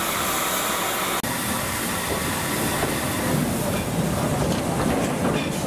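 Steady hiss of steam from a standing steam locomotive, cut off abruptly about a second in. A steam-hauled train then rumbles and rattles, with the wheels clicking over rail joints near the end.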